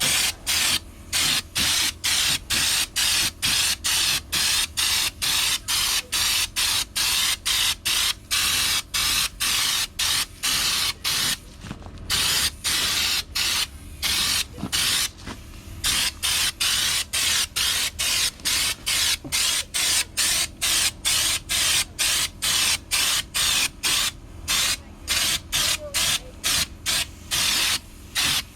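Air spray gun hissing in short, rapid bursts, about two a second, as Raptor bedliner is sprayed on, pausing briefly a couple of times.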